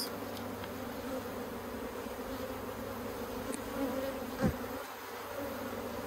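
Steady hum of many honeybees swarming over a brood frame lifted from an open hive, a calm, gentle colony. One brief louder buzz stands out about four and a half seconds in.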